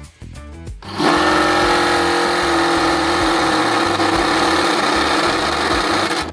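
Handheld electric power tool running steadily under load for about five seconds, starting about a second in and stopping abruptly near the end, over guitar background music.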